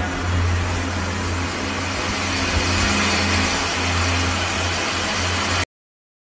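Steady low rumble with an even hiss over it, like an engine running close by, cutting off suddenly near the end.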